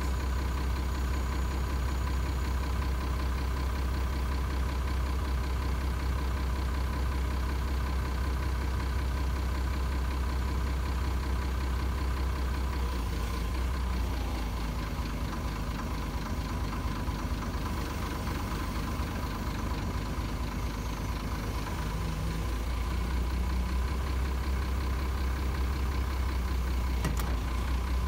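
Link-Belt 3400 excavator's diesel engine running steadily. From about halfway through, its sound shifts for about ten seconds and a few steady higher tones join in as the machine is worked, before it settles back. A single sharp click comes near the end.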